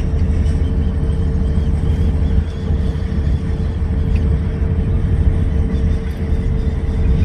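Steady low engine rumble with a constant hum: a vehicle idling.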